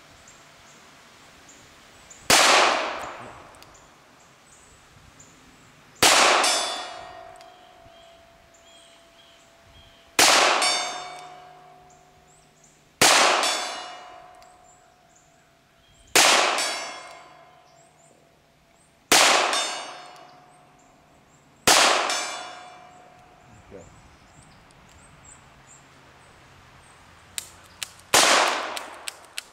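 A .22 Long Rifle revolver, the stainless nine-shot Taurus Model 94, fired slowly at a steel gong: eight sharp reports a few seconds apart. Several hits leave the gong ringing as a steady tone that fades over a second or two.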